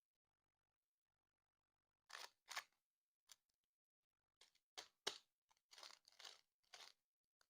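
Faint handling sounds: a series of short crunchy rustles at irregular intervals, two about two seconds in, then a quicker run of them in the second half.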